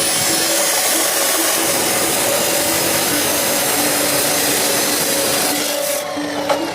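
A steady, harsh hiss of metalwork that starts suddenly and eases off about six seconds in, over background music.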